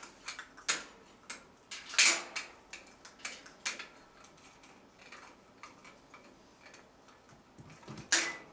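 Congo African grey parrot making an irregular run of sharp clicks and taps, with the loudest about two seconds in and again near the end and fainter ticks between.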